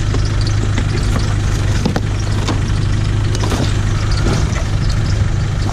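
A car engine idling steadily, with scattered light clicks and knocks of items being handled.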